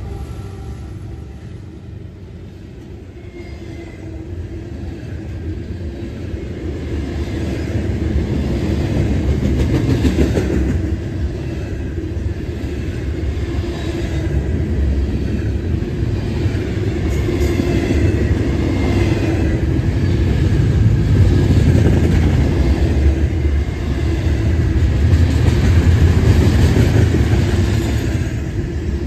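Double-stack intermodal freight train rolling past: a continuous rumble and clatter of steel wheels on the rails from the container well cars. It dips briefly a couple of seconds in, then builds and stays loud.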